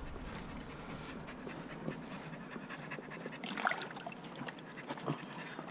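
Steady, quick panting breaths, with a few faint clicks about three and a half seconds in.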